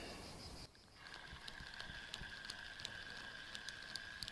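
Spinning reel on a feeder rod being wound in: a quiet steady whir with light irregular ticking.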